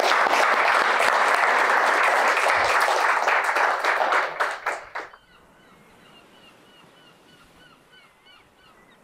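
Audience applauding, dying away after about five seconds. Then a faint, steady series of short chirping notes, a little over two a second.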